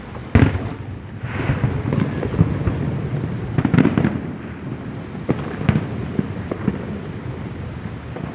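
Aerial fireworks going off: a sharp loud boom about half a second in, then rumbling and crackling, another cluster of loud bangs around four seconds in, and scattered pops after.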